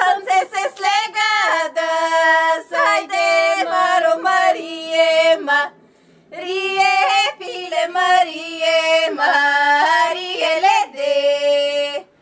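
Two women singing a Bulgarian folk song together without instruments, with a short pause for breath about six seconds in.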